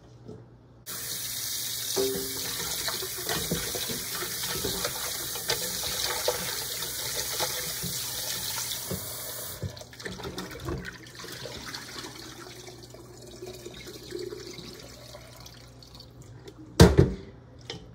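Kitchen tap running into a pot of raw chicken pieces in a stainless steel sink while hands rub and wash them, with water splashing. The tap stops about ten seconds in, and water sloshes as the pot is tipped and drained. There is a single loud knock near the end.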